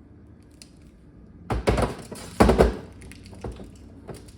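Hard plastic parts of a reverse osmosis filter unit knocking and scraping as the filter cartridge is handled and twisted into its housing. There are two loud bursts, about a second and a half in and about two and a half seconds in.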